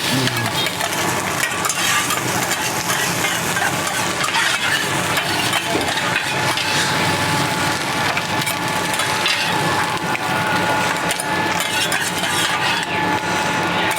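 Metal spatulas scraping and clicking rapidly on a teppanyaki iron griddle as rice is stir-fried, over a continuous sizzle.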